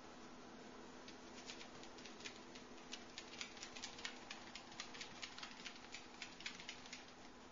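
Miniature dachshund puppy's claws clicking on a hard floor as it walks about: a quick, irregular patter of light ticks that starts about a second in and dies away near the end.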